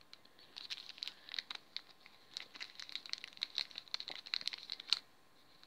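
A small clear plastic bag crinkling as fingers squeeze and work it, in a quick run of crackles that stops about five seconds in.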